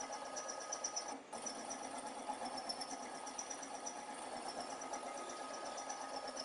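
Packaging filling machine running: a steady mechanical hum with faint high ticking, briefly dropping out about a second in.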